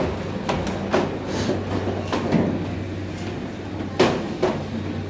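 Plastic security-screening trays knocking and clattering as they are handled and carried on a tray conveyor, about six sharp knocks with the loudest about four seconds in, over a steady low hum.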